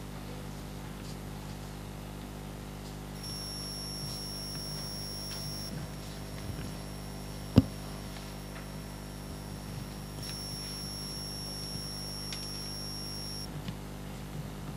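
Quiet room tone with a steady low hum. A faint high-pitched whine comes in twice for a few seconds, and one sharp click sounds about halfway through.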